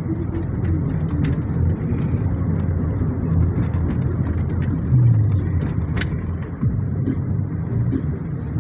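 Steady road and engine rumble inside a car's cabin as it moves through traffic, with music playing under it and a single sharp click about six seconds in.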